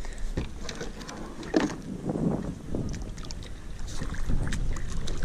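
Kayak paddling: a double-bladed paddle dipping into calm water in uneven strokes, with splashes and drips off the blades and the odd light knock.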